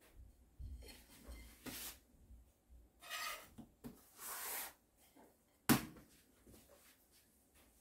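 Handling sounds: several short scraping, rubbing sounds as a pizza slice is pulled off the pizza on its peel and a ceramic plate is moved about. A single sharp knock comes near the end and is the loudest sound.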